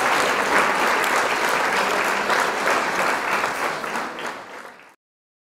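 Audience applauding, a dense steady clapping that fades out near the end and stops completely about five seconds in.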